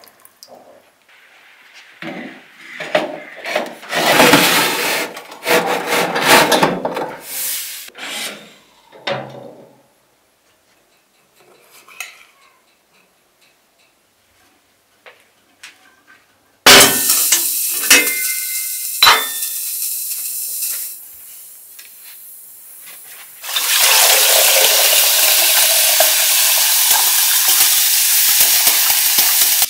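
Water poured from a glass over a fish in a metal baking tray, with splashing and clatter of the tray, for the first few seconds. Later a few clinks of a yellow enamel kettle, then near the end a steady pour of water filling the enamel kettle.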